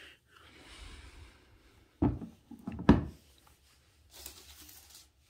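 Sneakers being handled and set down on a hard surface: light rustling, then two knocks about a second apart, the second louder, then more rustling.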